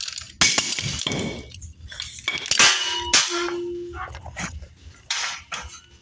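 RIDGID ratchet-style soil pipe cutter on cast iron pipe: sharp cracks and clanks as the ratchet handle is worked and the cutter wheels snap the pipe, with a brief metallic ring about three seconds in.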